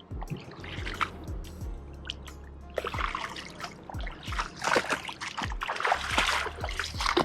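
Background music with a steady thumping beat, over water splashing and trickling that gets louder about three seconds in.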